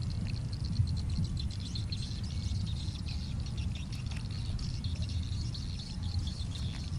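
Insects chirping in a fast, steady high trill, over a low rumble.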